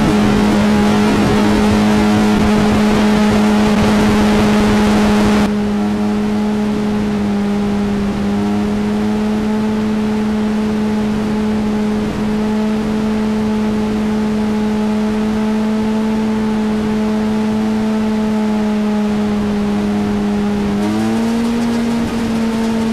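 Sport motorcycle engine held at steady high revs, with heavy wind rush for the first five seconds that cuts off suddenly. The engine note stays almost level, stepping up slightly near the end.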